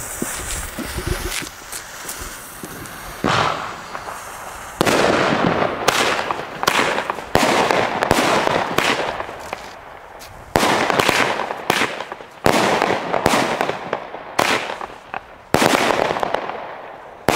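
Xplode Punk nine-shot consumer fireworks battery firing its shots one after another, about every one to two seconds. Each shot is a sharp bang that trails off into a fading hiss as the stars burn out.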